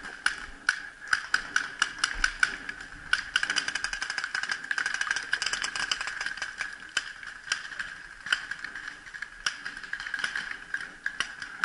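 Paintball markers firing: many sharp pops, scattered at first, then coming thick and fast from about three to six seconds in, then thinning out again.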